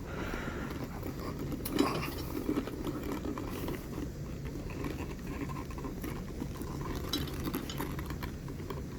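Handling noise from a strap being fed through a small motorcycle tool bag and pulled tight: soft rubbing and scraping, with a light knock about two seconds in, over a low steady hum.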